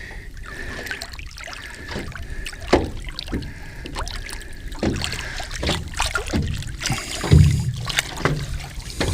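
Water splashing and lapping at the side of a small fishing boat, with scattered knocks and a few heavier thumps against the hull, as a snapper is let go over the side. A faint steady high tone runs through the first half.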